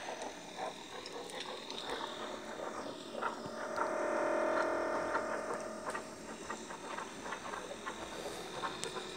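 The Predator's vision-mode sound effect: soft, irregular electronic clicks and crackles, with a steady tone held for a couple of seconds about halfway through.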